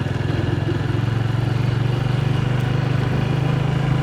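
Small motorcycle engine running steadily under way, a low even drone that picks up slightly about a second in.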